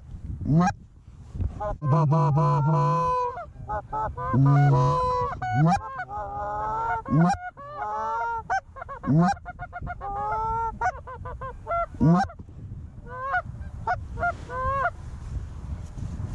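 Canada goose honks and clucks, many rapid overlapping calls with sharp rising notes that break upward, and a few lower drawn-out moans about two and four seconds in.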